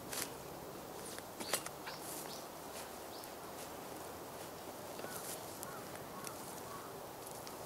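A spade cutting and scraping into soil and dry straw stubble in a few short strokes, the sharpest about a second and a half in. Faint bird chirps in the background.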